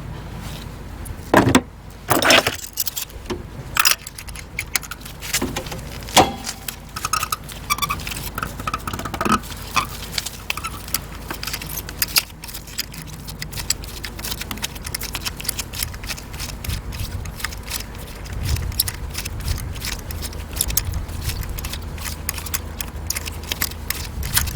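Metal hand tools and parts clinking, clicking and knocking during spark plug replacement work on a car engine. There are several loud knocks in the first few seconds, short metallic rings in the middle and a run of rapid light clicks later.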